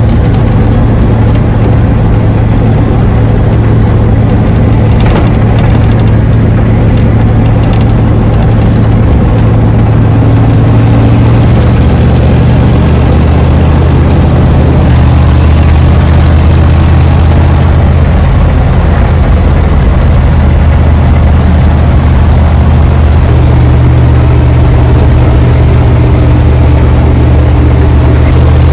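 Old rat rod truck's engine running loudly while driving, heard inside the cab with road and wind noise. Its low drone drops in pitch about eleven seconds in and rises again about twenty-three seconds in.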